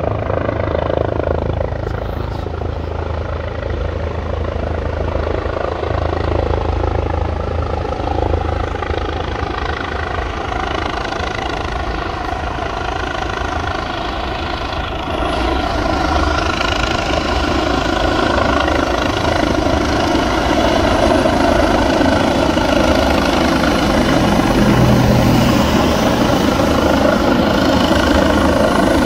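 Helicopter flying in with a steady rotor and engine drone that grows louder about halfway through as it approaches and passes low overhead.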